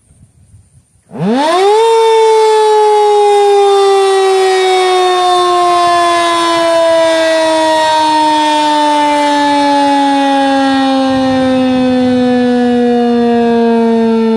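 Federal Signal 2001-SRN electromechanical outdoor warning siren starting up: about a second in it winds up steeply to full pitch, then holds a loud, steady wail that sinks slowly in pitch.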